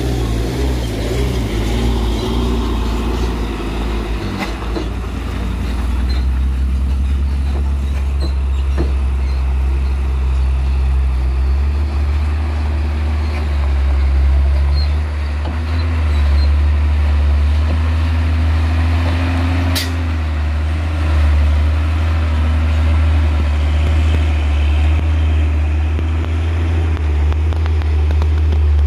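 Diesel engines of loaded cargo trucks labouring up a gravel incline, a loud low steady drone that grows as one truck draws close and passes. A single short sharp click or hiss sounds about twenty seconds in.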